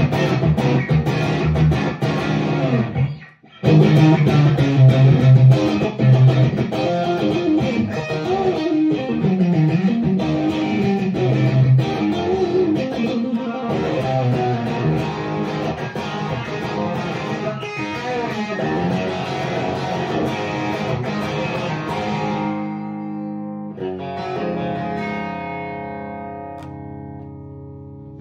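Electric guitar with single-coil pickups played through a handmade overdrive pedal and a volume boost pedal, ad-libbing runs of notes and chords. The playing stops briefly about three seconds in. Near the end a last chord is struck and left ringing as it fades.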